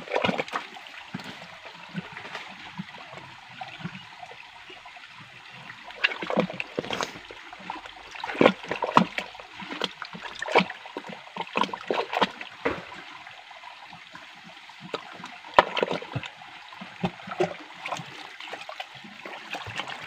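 Shallow stream running over rocks, with spells of irregular splashing and sharp knocks as people wade through the water searching for crabs.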